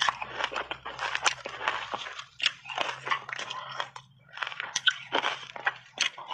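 Close-miked chewing and biting of a crunchy frozen milk-powder and ice sandwich dusted with matcha powder: dense sharp crunches and crackles, easing off briefly about four seconds in before fresh bites crunch again.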